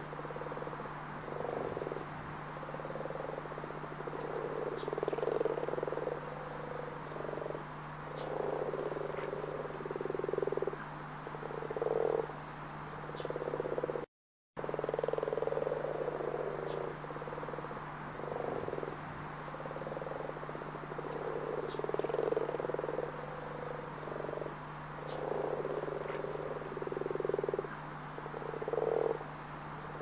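A chorus of frogs croaking, many overlapping calls swelling and fading continuously, over a steady low hum. The sound cuts out briefly about halfway through, then the same stretch of chorus repeats.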